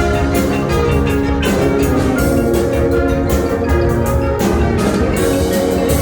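High school marching band playing its show music: held chords over steady drum and percussion hits.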